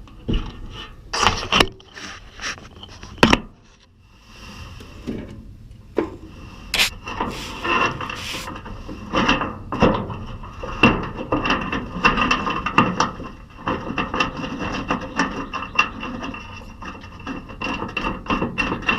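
Hand work on a pickup tailgate latch mechanism: a run of metal clicks and knocks with scraping and rubbing as parts are fitted, and a thin steady high squeal through the second half.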